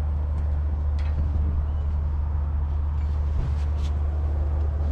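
A steady low drone of an idling engine, even in level throughout, with a few faint light ticks over it.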